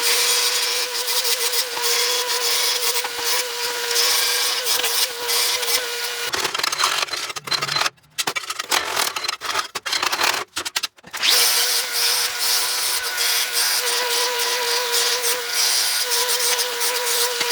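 Power tool running with a steady whine over a harsh hiss as it works steel. About six seconds in the whine stops for several seconds of choppy, broken sound with brief dropouts, then the whine resumes.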